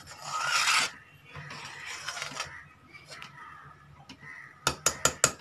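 Metal ladle scraping across the bottom of a shallow metal pan of hot milk in two stretches of stirring, then a quick run of about five sharp clinks of the ladle on the pan near the end. The milk is being stirred constantly so it does not catch on the pan while it reduces.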